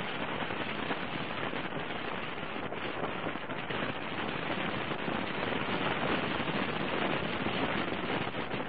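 Steady rush of wind and rain noise on the microphone of a camera on a moving motorcycle, with no clear engine note standing out.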